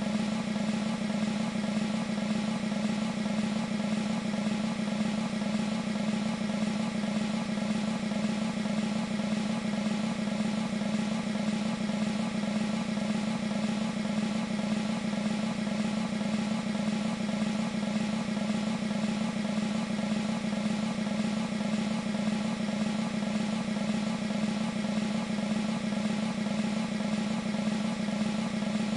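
Sampled military snare drum roll from a Proteus 2 sound module, held as one continuous, even roll with a strong low drum tone under the rattle of the snares.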